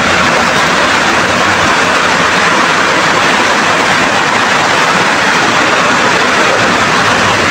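Floodwater rushing and splashing against a wall, a loud, steady rush of water.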